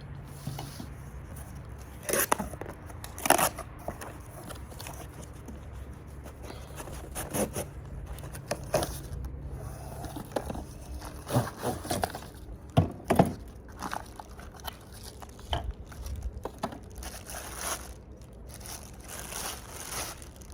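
Cardboard box being opened and its packaging handled: irregular scrapes, rustles and knocks, the loudest a few seconds in and again about halfway through.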